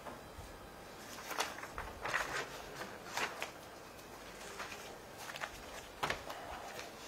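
Scattered rustles and light knocks of paper being handled at a desk, in a few short separate bursts over a faint room hiss.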